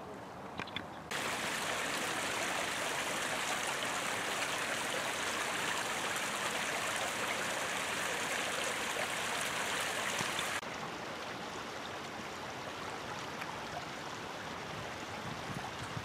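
Shallow creek running over stones and gravel, a steady rush of water. It jumps louder and brighter about a second in and drops back to a softer flow at around ten seconds.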